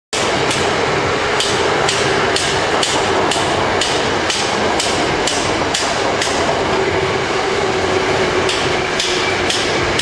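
Construction hammering, sharp strikes about two a second, over a loud steady rushing noise.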